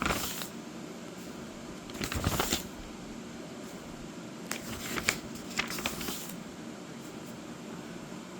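Pages of a colouring book being turned, a papery rustle and flap three times: near the start, about two seconds in, and a longer handling of pages between about four and a half and six seconds in.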